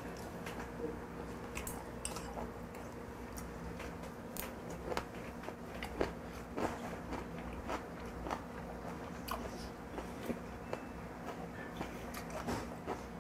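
A person chewing a crunchy mouthful that includes napa cabbage kimchi, close to a lapel microphone: a steady run of small crunches, with two louder ones about halfway through.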